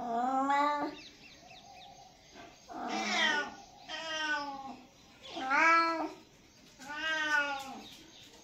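Young tabby-and-white cat meowing over and over: about six separate meows, each under a second long, roughly one a second, one of them much softer than the rest.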